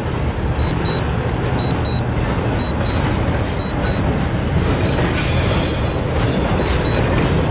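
Freight train rolling past with a steady, heavy rumble of wheels and cars, and a brighter hiss between about five and seven seconds in. A short high tone repeats about once a second over it.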